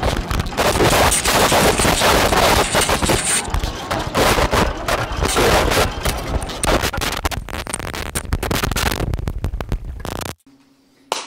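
Harsh distorted glitch noise: a dense barrage of crackles and rapid-fire pops that cuts off abruptly near the end, followed by one sharp click.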